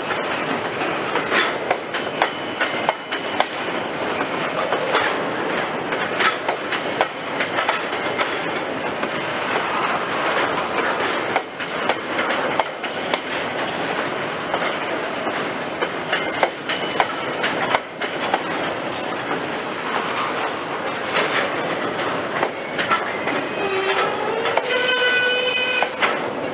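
A long train of loaded grain hopper cars rolling past, the wheels clattering over rail joints with a steady rattle and frequent sharp clicks. Near the end a drawn-out tone rises and then holds for a couple of seconds.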